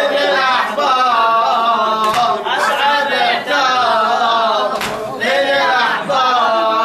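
Male reciter chanting a Shia latmiyya lament into a microphone, with the congregation's chest-beating (latm) striking together twice, about every two and a half to three seconds.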